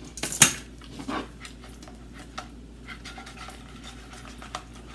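Metal tongs clack once onto a metal baking tray about half a second in, then faint light clicks and rustling as a frying pan of sauce-coated cauliflower pieces is shaken and tossed.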